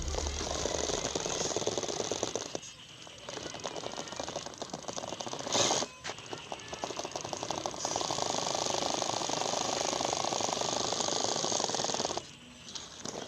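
Electric motor and gear drivetrain of a 4WD RC car whirring with a fast ticking texture as it drives. It stops briefly about two and a half seconds in and again near the end, with a short loud noise about five and a half seconds in.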